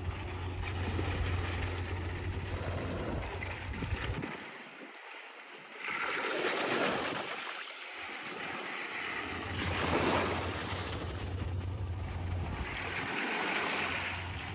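Waves washing onto a sandy beach, surging in a few times, with wind rumbling on the microphone that drops out twice briefly in the middle.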